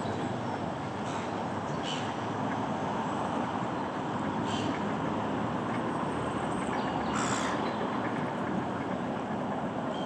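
Steady outdoor rumble like distant road traffic, with a few short bird calls about two, four and a half and seven seconds in.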